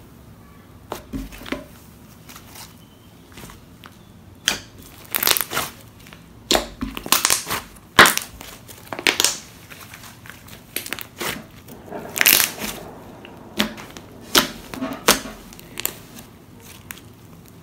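Pink slime being kneaded, folded and stretched by hand with soft clay worked into it. It gives irregular squishes, clicks and crackling pops, sparse at first and coming thick and fast from about four seconds in.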